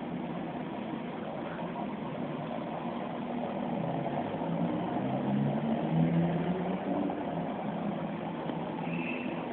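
Aquarium filter running, a steady mechanical hum with a rushing noise, a little louder about halfway through.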